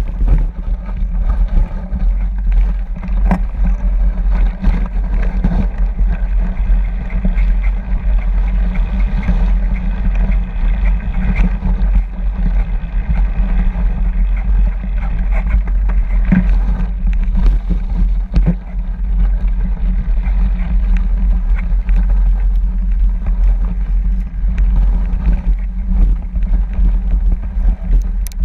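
Mountain bike ridden along a snowy trail, heard from a camera riding with it: a constant heavy low rumble of wind on the microphone, with tyre noise and small knocks and rattles of the bike over the snow.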